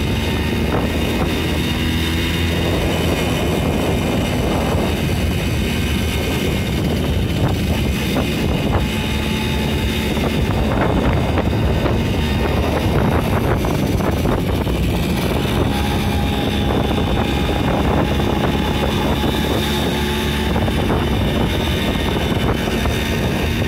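Romet Ogar 205 moped's single-cylinder two-stroke engine running steadily under way, with wind rushing over the microphone.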